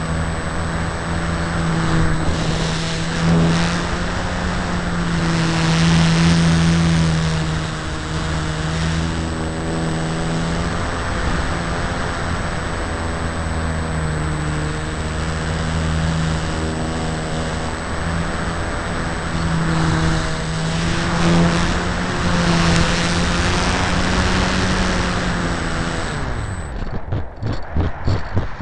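RC Tiger Moth model biplane's motor and propeller running steadily, heard from a camera on board the plane, its pitch rising and falling a little with the throttle. Near the end the motor sound drops away, leaving a fast fluttering rattle.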